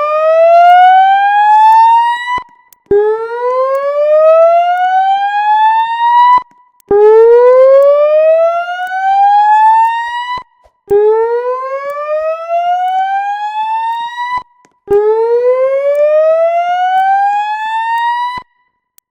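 Notifier voice-evacuation fire alarm speaker sounding a loud whoop tone: a rising sweep that climbs steadily in pitch for about three and a half seconds, then cuts off and starts again, about every four seconds. This is the evacuation tone played between the spoken evacuation messages.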